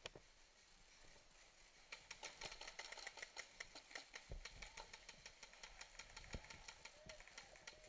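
Paintball markers firing in fast strings of faint pops, several a second, starting about two seconds in. Two dull knocks come partway through.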